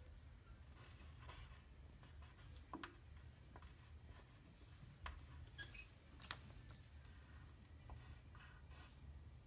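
Faint scratching of drawing strokes on paper, with a few sharp clicks about three, five and six seconds in.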